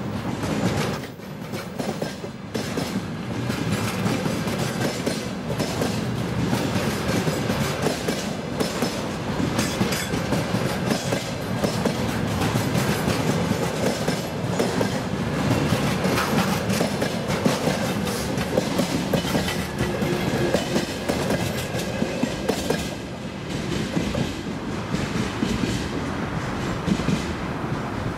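Freight train wagons rolling past, their wheels clattering over the rail joints in a steady run of clicks, easing slightly as the last car goes by.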